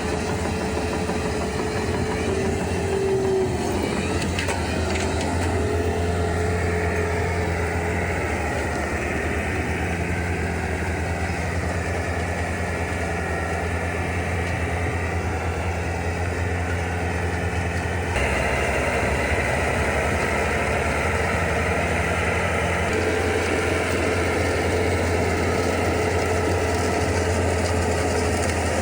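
Bobcat S76 skid steer's diesel engine running steadily under load. The sound changes abruptly about two-thirds of the way through.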